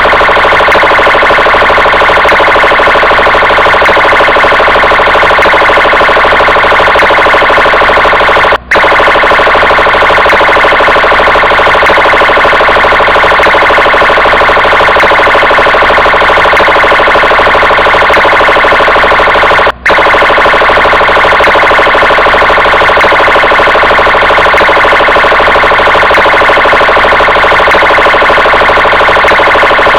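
Brazilian Polícia Militar car siren sounding continuously, loud and steady. It cuts out for an instant twice, where the recording loops.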